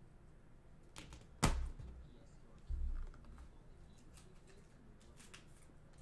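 Trading cards and packs being handled on a tabletop: a few sharp taps and knocks, the loudest about a second and a half in and a heavier one near three seconds, then faint clicks.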